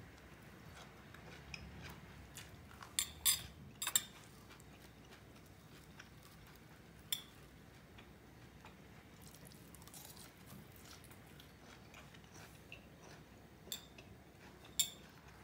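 Metal fork clinking and tapping on a ceramic plate, a few sharp clinks with a cluster about three to four seconds in and two more near the end, and quiet chewing in between.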